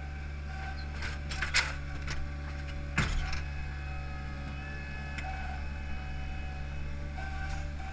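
Hydromak paving machine's engine running steadily while its Probst clamp grips and lifts a layer of H-profile concrete pavers off a pallet, with two sharp knocks about a second and a half and three seconds in and lighter clicks of the clamp and stones.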